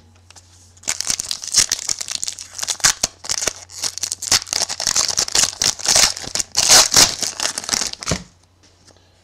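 Plastic wrapper of a trading-card pack crinkling and tearing as it is opened by hand: a dense crackle that starts about a second in and stops shortly before the end.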